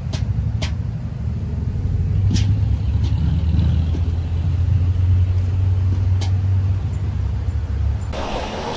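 Low, steady rumble of an engine running nearby, with a few sharp clicks over it.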